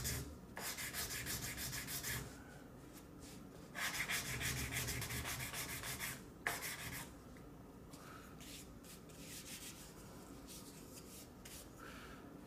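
Sandpaper wrapped on a block, 240-grit, rubbed rapidly back and forth along the edges of a small wooden octagonal base to chamfer its corners. There are two spells of strokes, the first about two seconds long and the second from about four to six and a half seconds in, then only faint, light rubbing.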